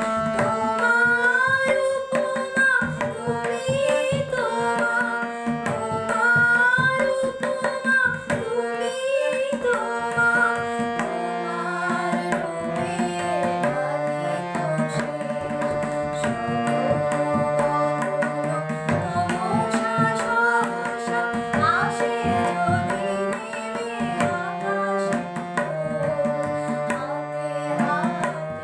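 A girl singing a slow melody, accompanied by sustained harmonium chords and a tabla playing a steady rhythmic pattern.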